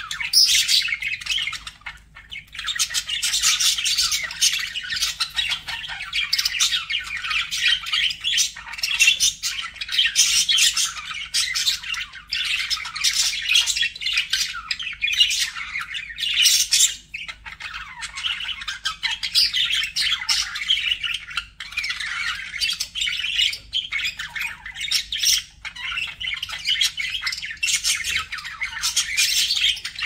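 Budgerigars chattering and warbling almost without break, with squawks and chirps mixed in and a few short pauses.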